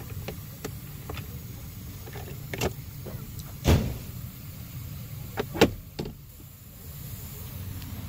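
Hard plastic clicks and knocks as a cabin air filter is slid into and seated in its housing behind the glovebox: several sharp knocks, the loudest about halfway through and again a couple of seconds later.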